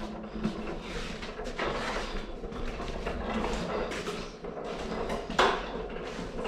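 Handling noises: rustling and light knocks of parts being moved about, with one sharper knock near the end.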